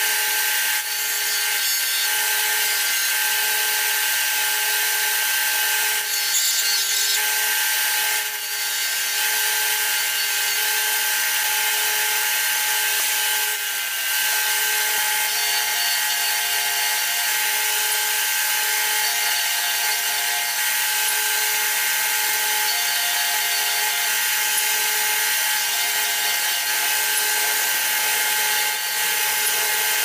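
Rikon benchtop disc sander running steadily, with a cast resin pen blank in a truing jig pressed against the spinning sanding disc to square its ends.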